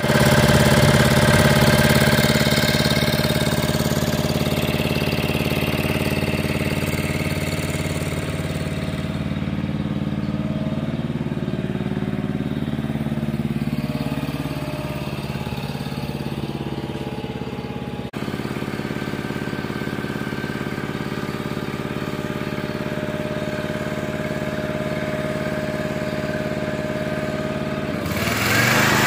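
Winco Super Fire-Lite generator's Briggs & Stratton engine running steadily. About a second before the end, an electric leaf blower powered from the generator starts up with a rising whoosh.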